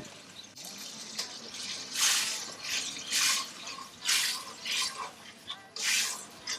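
Water from a kitchen tap splashing in a sink in a series of short gushes, about one a second.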